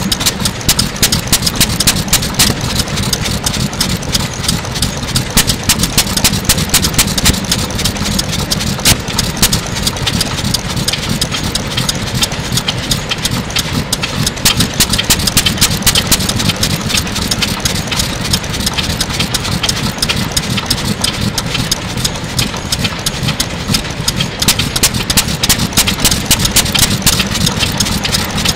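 Circa-1935 Nishifuji single-cylinder farm kerosene engine running, a fast, slightly uneven train of sharp exhaust beats over a low rumble. It is warming up after a cold start while its gasoline-and-kerosene fuel mixture is being adjusted.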